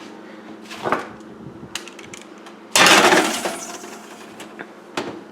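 Kitchen oven being loaded: a few clicks and knocks, then a loud metallic clatter about three seconds in as a baking sheet of cookies goes in and the oven door is handled, with more clicks near the end.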